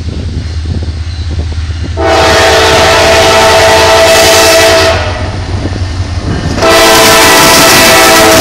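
Norfolk Southern diesel locomotive's air horn sounding two long blasts, a chord of several notes at once: the first about two seconds in lasting about three seconds, the second starting near the end and still sounding. Under them runs the low, steady rumble of the approaching diesel engines.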